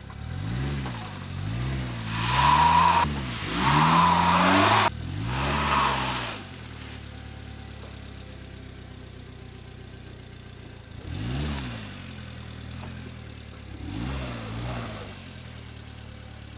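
Subaru car engine revving in repeated surges, rising and falling about once a second, with loud bursts of rushing noise for a few seconds. It then drops back to a low steady run, with two shorter revs later on.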